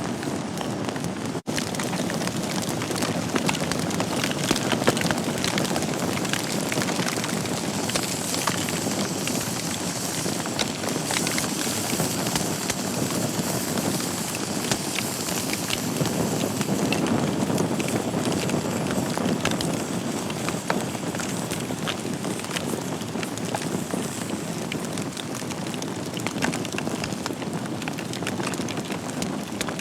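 Wood fire burning in a fireplace, crackling steadily with many small sharp pops over the continuous hiss and low rush of the flames. The sound breaks off for an instant about a second and a half in.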